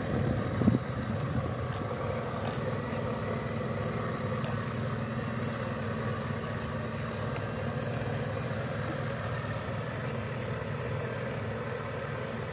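Radio-controlled excavator's motors running steadily as it digs and swings its arm, with a few light clicks, the sharpest about a second in.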